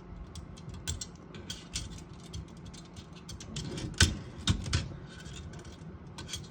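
Small metal parts inside an Olivetti Lettera 32 portable typewriter clicking and rattling as they are handled and jiggled by hand, with a few louder knocks about four seconds in.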